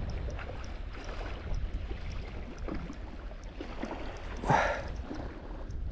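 Wind rumbling on the microphone over moving water, with one short rushing noise about four and a half seconds in.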